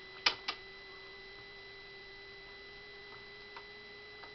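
Two sharp clicks a quarter second apart, then a couple of faint ticks near the end, from hands handling a coin and a plastic water bottle on a table. A steady faint electrical hum runs underneath.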